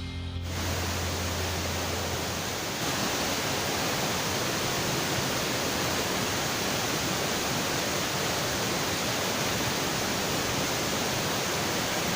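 Waterfall's rushing water: a steady, even hiss.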